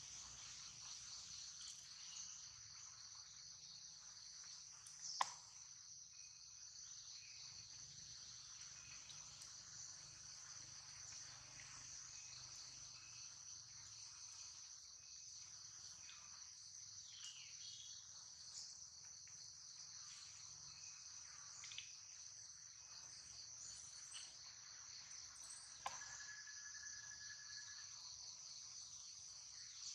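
Faint, steady high-pitched drone of insects in the surrounding trees, with a single sharp click about five seconds in.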